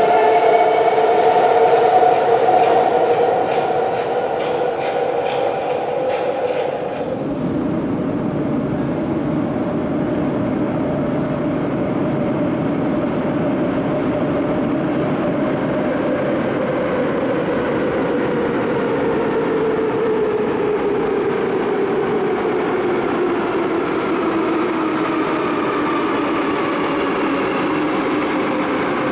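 Type 81-717/714 metro train pulling out of a station: a traction-motor whine with rhythmic clicking of the wheels. About seven seconds in it cuts to a steady rumble, with a slowly falling whine, from another 81-717/714 train approaching through the tunnel.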